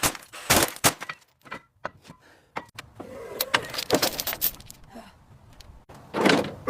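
A run of irregular sharp knocks and clicks, with a louder rush of noise about six seconds in.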